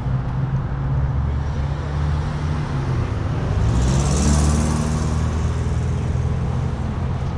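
Motor vehicle engine running with a steady low hum. A little over three seconds in, the note rises and a hiss swells for a second or two before it settles.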